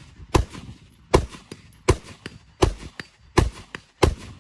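Rifle fired six times in a steady, even rhythm, about one shot every three quarters of a second, each sharp report followed by a fainter short echo.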